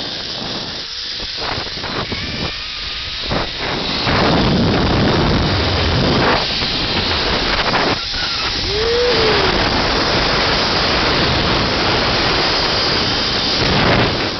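Loud, steady rush of wind over the microphone during a fast zipline ride, mixed with the trolley's pulleys running along the steel cable; it grows louder about four seconds in. About nine seconds in there is one brief rising-then-falling tone.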